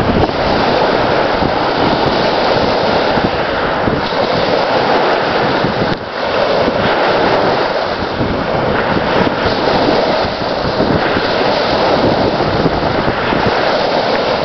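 Strong wind buffeting the microphone over small wind-driven waves breaking and washing up on a sandy lake shore: a loud, steady rushing that swells and eases, with a brief lull about six seconds in.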